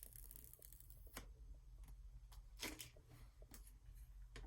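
Faint handling noises: a few soft ticks and rustles as the protective plastic film is peeled off a new iPhone 12 Pro.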